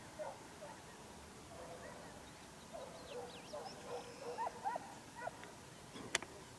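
Distant hounds faintly baying and yelping in short scattered cries as they run a hare's trail, with a single sharp click just before the end.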